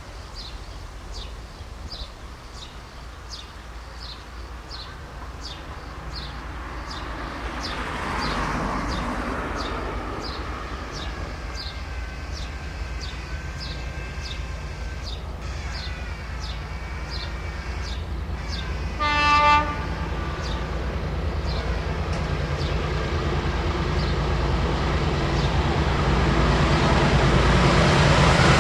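Diesel freight train approaching, its engine rumble growing steadily louder, with one short horn blast about two-thirds of the way through.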